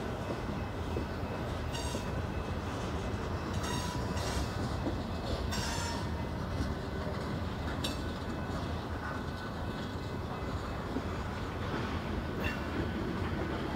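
Freight train cars rolling past at track side: a steady rumble and clatter of wheels on rail, with a few brief high-pitched wheel squeals scattered through.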